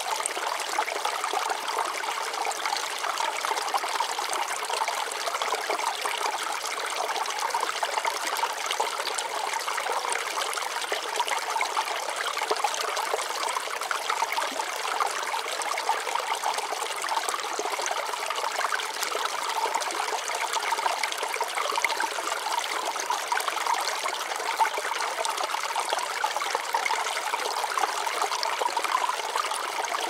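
Running water trickling and splashing steadily, light and without a deep rumble.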